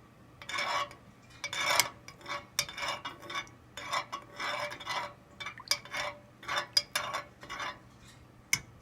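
A spoon scraping and clinking around the inside of a pot while stirring melting beeswax and mineral oil, in repeated, uneven strokes. There are a few sharper clinks near the end.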